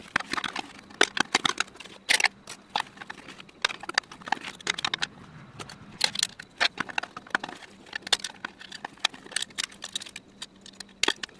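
Irregular metallic clicks, clinks and knocks of hand tools and loose parts as the center support is worked out of a 4L80E transmission case during teardown.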